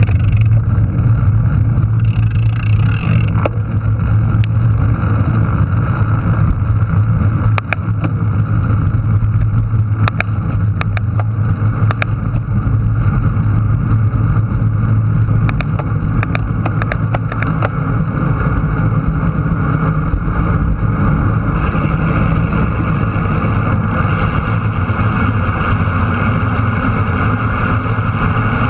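A vehicle's engine running steadily at road speed, with wind and road noise on a low-mounted action camera. A few sharp clicks or ticks come through in the middle.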